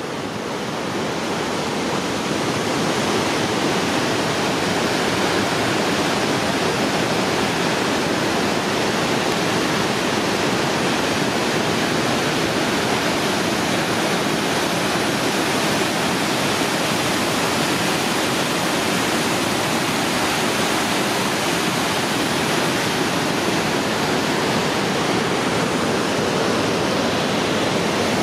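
Whitewater rapids rushing through a rocky canyon below: a steady, dense rush of water that grows louder over the first few seconds.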